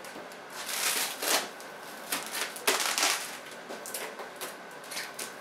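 Clear plastic protective film and tape crinkling and rustling as they are peeled off a glass door and handled. There are louder bursts about a second in and again about three seconds in.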